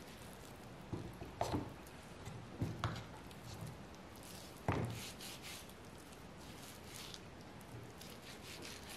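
Soft, damp knocks and rubbing as grilled zucchini slices are handled and laid down on a wooden cutting board, a few light knocks between about one and five seconds in, the firmest near the middle.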